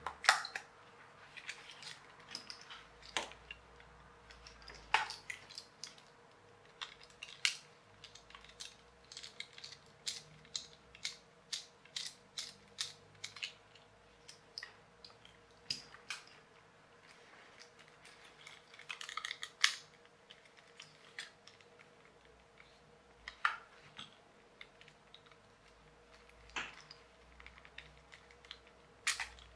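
Handling noises from a Nikko RC Mini Cooper toy's plastic chassis as it is turned over and its receiver compartment is worked with a small screwdriver: irregular sharp clicks and taps, a few louder knocks, over a faint steady hum.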